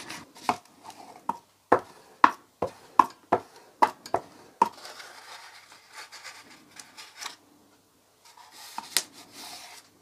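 A Pritt-type glue stick rubbed and tapped against book paper in a cardboard box, giving a quick run of about a dozen sharp taps over the first few seconds. This is followed by soft paper rustling as the glued page is pressed and smoothed down.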